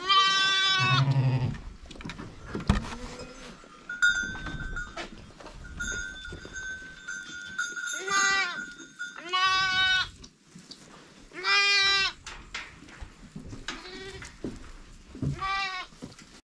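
Sheep bleating about six times, the first call long and loud at the start and the rest spread through the second half. A steady ringing tone runs in between, from about four to nine seconds in.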